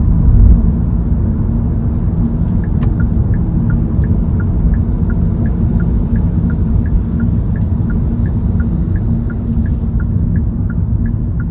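Steady road and engine rumble inside a Kia K3's cabin while driving, with the turn-signal indicator ticking evenly, about two ticks a second, from about two and a half seconds in.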